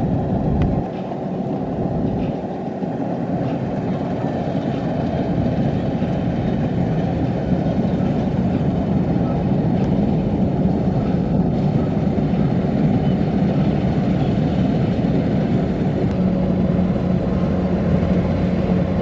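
Kubota DC-93 combine harvester running steadily, its four-cylinder turbocharged diesel engine giving an even low hum.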